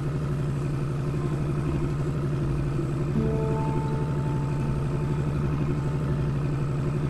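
Boat engine running steadily with a low, even throb.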